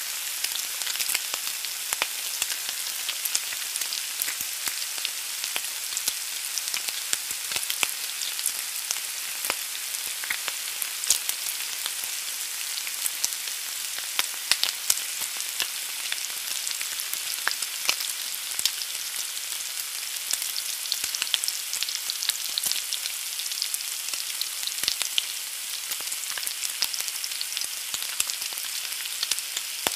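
An egg frying in a pan: a steady sizzle with frequent small crackles and pops.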